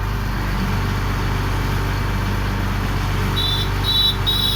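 Engine of a GD 45 horizontal directional drilling rig running steadily. Three short high-pitched beeps sound near the end.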